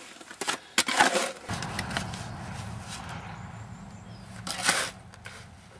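Shovel scraping into gravel in a wheelbarrow, with one loud scrape near the end over a low steady rumble; two sharp knocks come about a second in.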